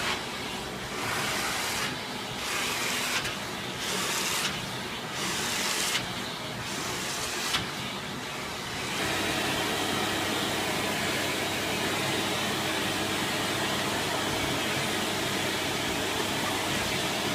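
Neptune AquaFilter water-filter vacuum cleaner running. For the first half its noise swells and fades about once a second, then about halfway through it settles into a steady whirr with a constant tone.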